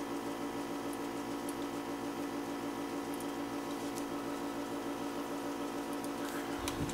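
A steady background hum with several fixed pitches, the electrical noise of the computer recording setup, with a few faint clicks of keys being typed.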